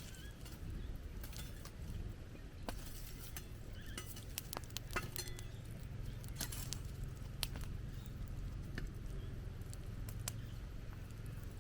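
Dishes and cutlery clinking now and then as they are handled during washing up, over a low steady rumble.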